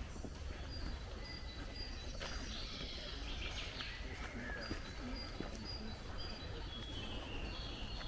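Several songbirds singing in a forest: a thin, high note repeated again and again, with warbling song over it about two seconds in and again near the end, above a steady low background rumble.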